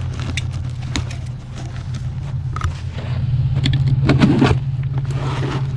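An engine idling steadily, getting louder about three seconds in, with scattered clicks and knocks over it.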